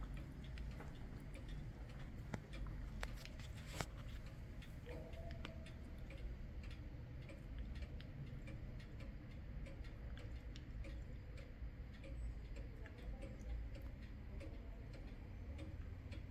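Oak-cased 1920s pendulum wall clock ticking steadily, its escapement giving a run of short clicks.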